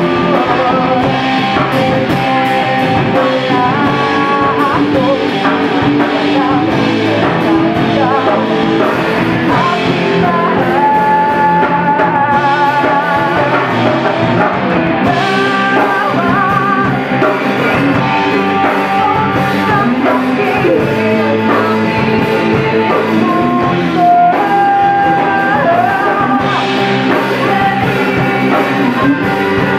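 A band playing a rock song: singing over guitar, bass guitar and a drum kit.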